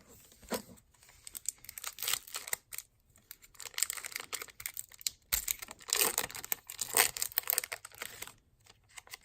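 Trading-card pack wrapper crinkling and tearing as it is opened by hand, in irregular clusters of crackles, loudest about six to seven seconds in.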